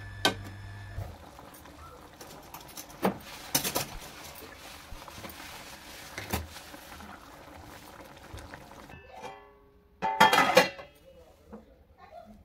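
Paneer curry bubbling in a non-stick pan, with a few sharp knocks of the steel ladle against the pan. About ten seconds in comes a loud burst of clatter as a steel plate is set over the pan as a lid.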